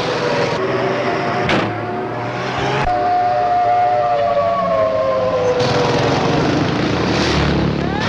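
Air-raid warning siren wailing, its pitch sliding slowly downward over a steady noisy background; the sound changes abruptly a few times.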